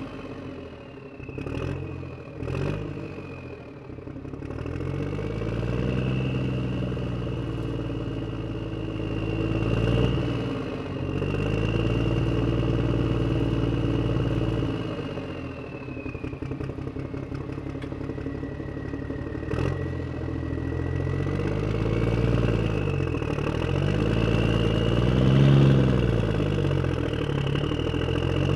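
Motor vehicle engine driving away, its pitch rising and falling several times as it speeds up and eases off. Two sharp clicks come in the first three seconds, and another about two-thirds of the way through.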